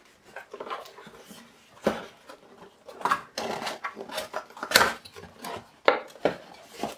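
Small cardboard accessory box being handled and its flaps pulled open: scattered knocks and cardboard rustling, with the loose metal screws and parts inside clattering. The loudest knock comes about five seconds in.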